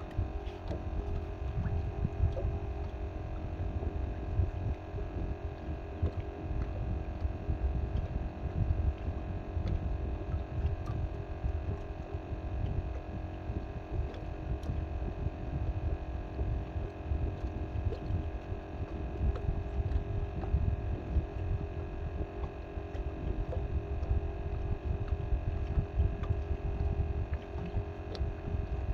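Uneven low rumble of wind buffeting the microphone, over a steady hum of several constant tones.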